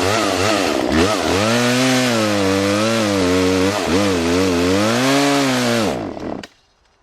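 Two-stroke chainsaw with a ripping chain cutting lengthwise through a log, engine pitch dipping and recovering under load. About six seconds in the engine sags and dies, out of fuel.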